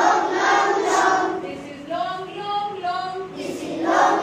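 A class of young children chanting a rhyme together in a sing-song unison, with a single woman's singing voice leading a line in the middle before the children come in again near the end: a call-and-response teaching chant.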